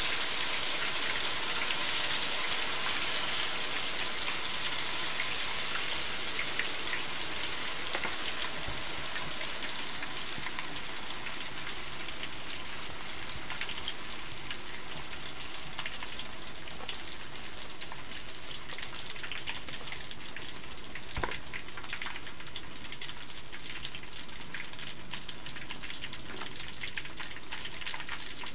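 Tempe frying in hot oil in a wok: a steady sizzling hiss with fine crackles, easing slightly in loudness as it goes. A single sharp click about two-thirds of the way through.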